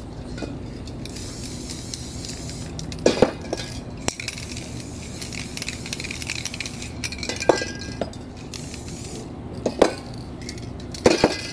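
Aerosol spray paint cans hissing in sprays onto canvas. Sharp metallic clinks from the cans come several times, around 3, 7.5, 10 and 11 seconds in.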